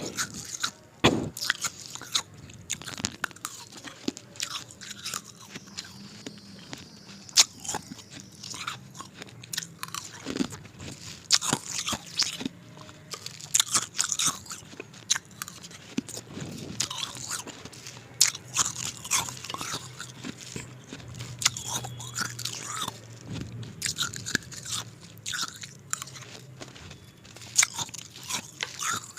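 Ice being bitten and crunched close to the microphone, with irregular sharp cracks and chewing throughout.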